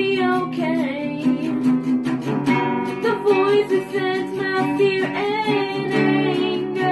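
A young voice singing a slow song to a strummed acoustic guitar, the melody held and gliding over sustained chords.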